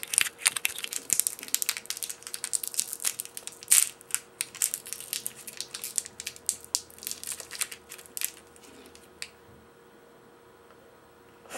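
Warheads sour candy wrapper crinkling and tearing as it is unwrapped by hand, a dense run of irregular crackles that stops about eight seconds in, followed by a single click.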